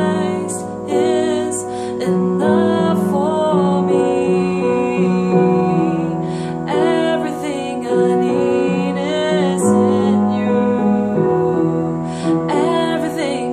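Upright piano playing a slow worship chorus in B major, the right hand holding the root and fifth (B and F-sharp) throughout while the left hand plays the chords and bass notes, with a woman singing the melody over it.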